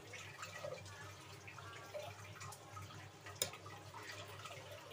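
Thick chana dal simmering in a pan, with faint scattered bubbling pops over a low steady hum and one sharper click about three and a half seconds in.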